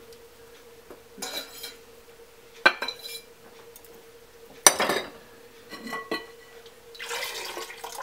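Scattered clicks and clinks of plugs, cords and the glazed ceramic fountain lid being handled, the loudest about five seconds in, with a rustling scrape near the end as the lid is taken off. A faint steady hum runs underneath.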